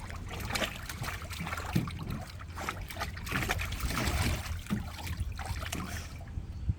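Water splashing and sloshing as a dog moves about in a small pool, going after balls, in an irregular run of splashes. A steady low hum sits underneath.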